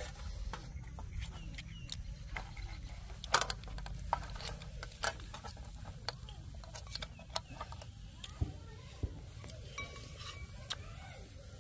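Metal spoons clicking and scraping against roasted clam shells and tapping a ceramic bowl: irregular sharp clicks, the loudest a little past three seconds in.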